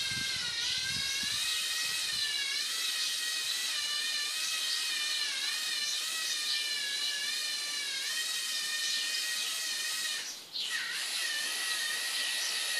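Lego Mindstorms NXT geared servo motors whining as they drive a Lego Technic truck, a high whine that wavers in pitch. It cuts out briefly about ten and a half seconds in, then starts again.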